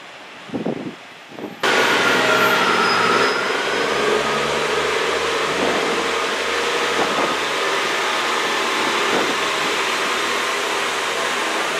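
A Class 143 Pacer diesel multiple unit running its underfloor diesel engines while it stands close by at the platform: a loud, steady mechanical drone with a low, regular pulsing beneath it. Before it cuts in abruptly a little under two seconds in, there are only two brief knocks.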